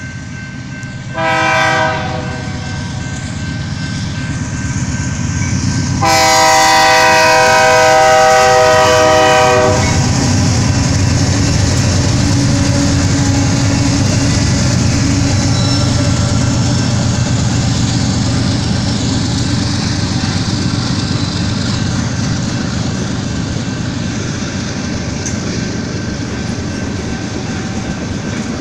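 BNSF freight train's locomotive air horn sounding a short blast about a second in, then a long blast from about six to ten seconds, over the steady rumble of the diesel locomotives and freight cars passing on the rails.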